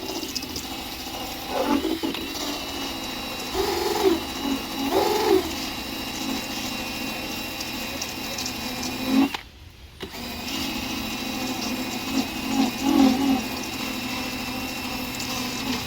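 Power drill spinning a removal wheel against the truck's paint to strip glue residue, its motor whining steadily with slight dips in pitch as it is pressed in. It stops briefly about two-thirds of the way through, then carries on.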